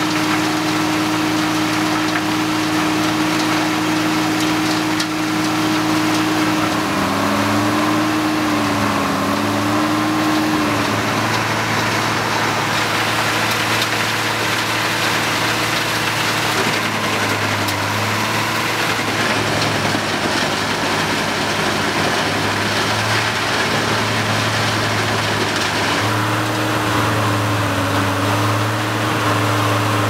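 Schlüter Super 1250 V tractor engine running a PTO-driven Heizohack wood chipper, with the chipper's shredding noise over it. The engine note dips and recovers twice, about a quarter of the way in and near the end, as it takes load when wood is fed.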